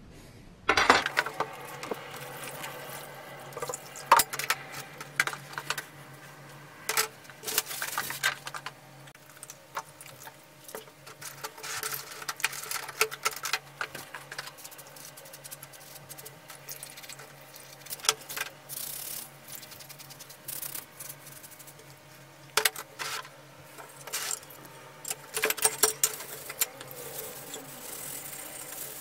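Copper sprayer parts handled in a plastic tub: scattered knocks and clicks of the copper tube and small brass fittings against the plastic and each other, then a sponge scrubbing the copper tank near the end, over a steady low hum.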